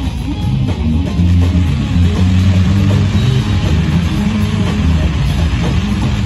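Rock music with a prominent bass line, guitar and drums.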